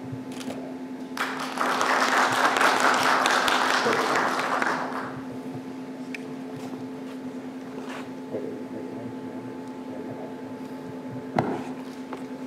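Audience applauding for about four seconds, then fading out, leaving a steady low hum in the hall. A single sharp knock comes near the end.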